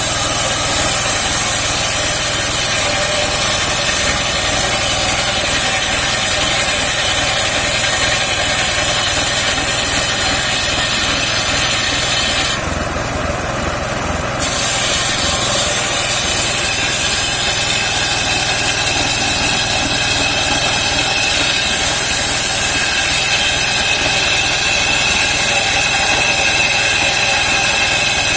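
Engine-driven homemade circular sawmill running steadily with its blade cutting saman (rain tree) wood, a high whine over the engine. About 13 seconds in, the whine drops out for roughly two seconds, then returns.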